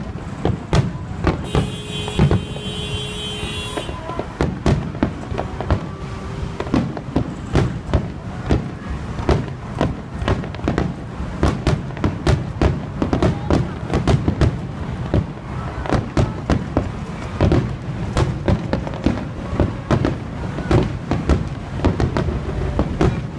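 Fireworks going off in a dense barrage: sharp bangs and booms several times a second over a continuous low rumble.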